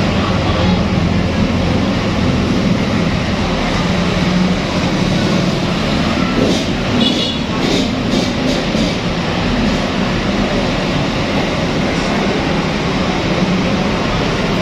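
Loud, steady rumbling background noise with no change, with a few short clicks about halfway through.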